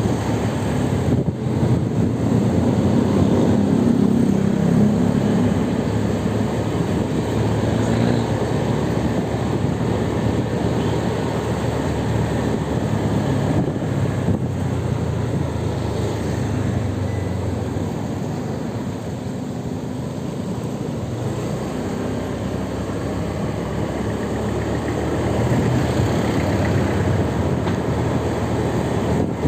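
Steady rumble of road vehicles, holding at much the same level throughout, with no distinct single event standing out.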